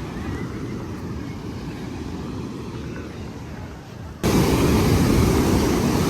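Wind noise on the microphone and ocean surf at a beach, with no clear tones. About four seconds in the sound jumps suddenly louder and hissier.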